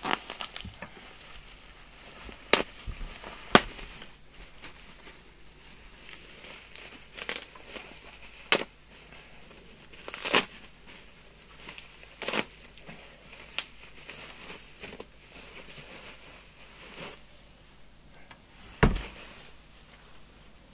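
Bubble-wrap packaging being pulled off and handled: crinkling and rustling with scattered sharp crackles. A dull thud comes near the end as the CB radio set is put down on the bench.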